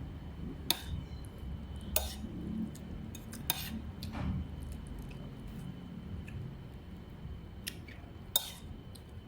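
Dishes and cutlery clinking, a few scattered sharp clinks over a steady low background hum.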